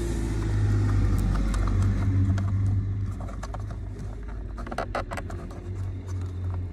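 Plastic clicks and knocks as a car footwell light unit is worked loose from the interior trim, with a quick run of clicks about two-thirds of the way through, over a steady low rumble of the phone being handled and rubbing against the seat fabric.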